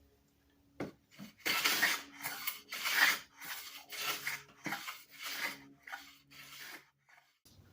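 Sargent 409C corrugated-sole hand plane pushed over a wooden board in a run of about eight quick strokes, its iron shaving the wood after being tuned and sharpened.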